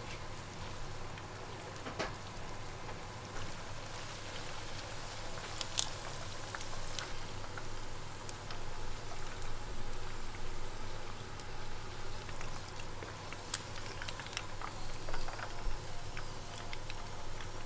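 Chicken pieces deep-frying in a pan of hot oil: a steady sizzle and crackle of bubbling oil, with scattered light clicks of chopsticks and a wire mesh strainer as the pieces are lifted out.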